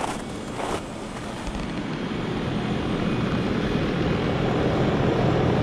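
Heat pump outdoor unit running in defrost mode: a steady compressor hum under a hiss, growing slowly louder.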